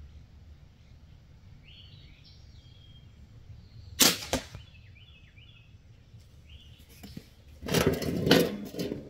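Barnett crossbow firing: a sharp snap of the string at release about four seconds in, then a thwack about a third of a second later as the bolt strikes the foam block target at 30 yards. Near the end comes a longer stretch of rustling noise.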